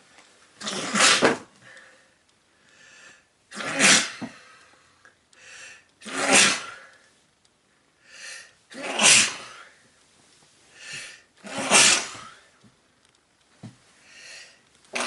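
A person sneezing again and again: five sharp sneezes about every two and a half to three seconds, each after a short, softer intake of breath, with a sixth starting right at the end.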